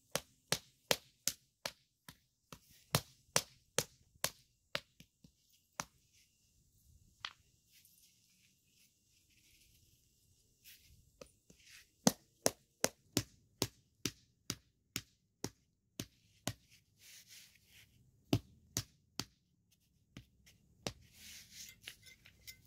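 Rubber mallet striking concrete pavers to bed them into the sand, in runs of quick regular knocks about two or three a second, with short pauses between the runs. It is the tapping that sets each paver level and firm so that it does not wobble.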